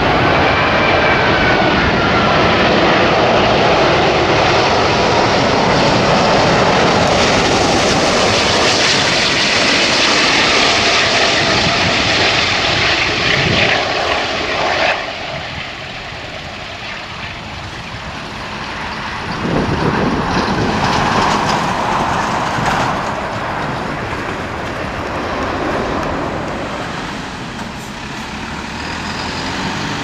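Singapore Airlines Airbus A380's four Rolls-Royce Trent 900 jet engines, loud as the airliner passes low on final approach, with a gliding whine near the start. The noise cuts off abruptly about halfway through. It comes back quieter as the jet rolls down the runway after touchdown, swelling again about two-thirds of the way in.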